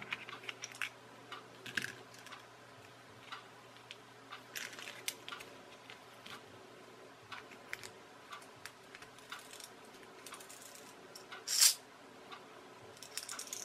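Small plastic clicks and rubbing as hands handle a clockwork bath toy's plastic shell, tail fin and wind-up motor unit, with one louder rustle near the end.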